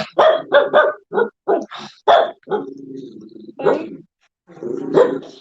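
A dog barking over and over in a quick run of short barks, with a longer, lower sound about halfway through and a few more barks near the end.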